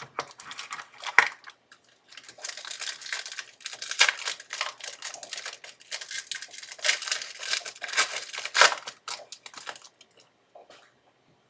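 Plastic wrapper of a Panini Rookies & Stars football card pack crinkling and tearing as the pack is opened, with scattered sharp clicks from handling the cards.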